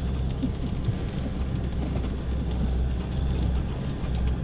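Vehicle cabin noise while driving over a rough, ungraded bush track: a steady low engine and road drone with a few small knocks from the bumpy ride.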